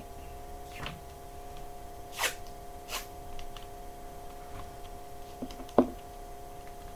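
A few short tearing rasps and a small click from masking tape being pulled and handled, over a steady electrical hum.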